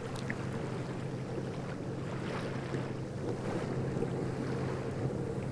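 A sailboat's engine running at a steady drone, with wind buffeting the microphone and water washing past the hull.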